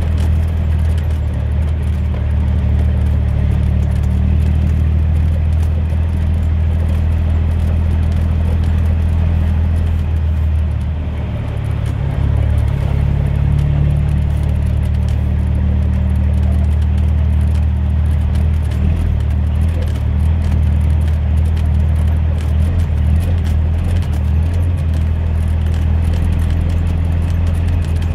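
Semi truck's diesel engine running at low speed, a steady deep drone heard from inside the cab, easing off briefly near the middle.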